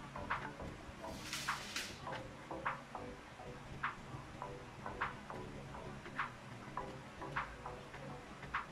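Light ticking at a steady pace, about one tick a second, with fainter clicks between. About a second and a half in there is a short rustling scrape of plastic parts being handled at the printer's ink-tank unit.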